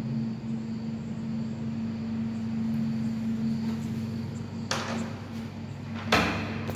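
A steady low hum, with two brief bursts of noise about five and six seconds in; the second burst is louder.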